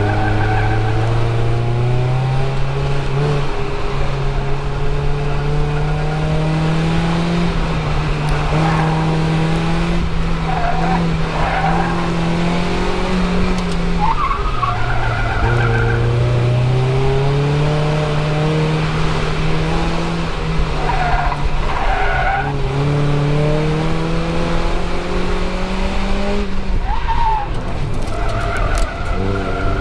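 2004 Mazda Miata's four-cylinder engine under hard driving on an autocross course, its pitch climbing steadily and dropping back sharply twice, about halfway through and again about two-thirds through. Tyres squeal briefly in the turns several times.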